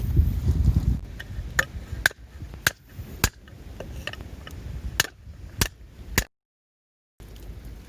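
Hammer strikes: about eight sharp, separate blows at uneven spacing over five seconds, after a low rumble in the first second. The sound cuts out abruptly near the end.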